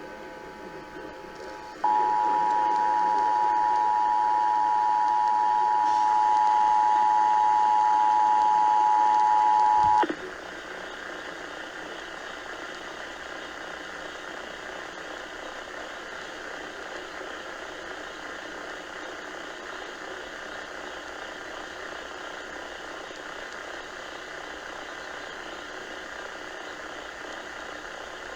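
Emergency Alert System two-tone attention signal (853 Hz and 960 Hz sounded together) received over the radio, marking the start of a monthly test alert. The steady dual tone is faint at first, jumps loud about two seconds in and cuts off suddenly about ten seconds in, leaving steady radio hiss.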